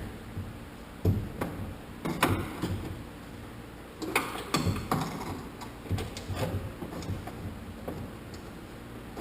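Irregular light clicks and knocks, about one a second, from tools and metal fastener parts being handled while a Huck fastener is fitted into a hard-to-reach spot on a truck cab.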